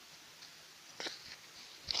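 Faint crackling clicks: a short cluster about a second in and another near the end.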